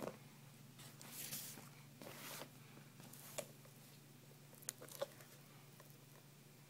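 Quiet handling noise from a spiked leather loafer being turned over in the hand close to the microphone. Two soft rustling swishes come about one and two seconds in, and a few light clicks and taps follow near the start, middle and about five seconds in.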